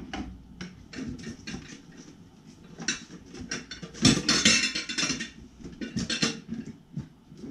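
Dust-hose adapter cones and attachments clicking and clattering as they are handled, with a louder rattle about four seconds in.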